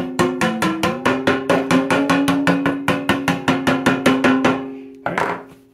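Background music: a fast, steady percussive beat of about five strikes a second over held notes, fading out near the end.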